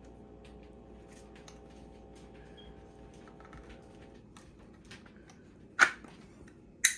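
Scattered light clicks and taps as a Lanber 12-gauge shotgun is handled and taken apart for cleaning, then two sharp metallic clacks about six and seven seconds in as a part is worked loose.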